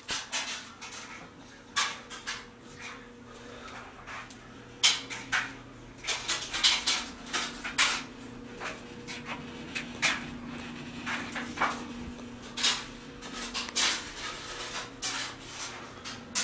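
Irregular knocks, clicks and rustles of a handheld camera being moved about, over a steady low hum.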